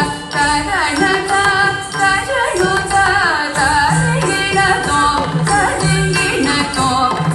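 Carnatic music for Bharatanatyam dance: a melody with sliding, ornamented notes over a steady low drone and regular drum strokes.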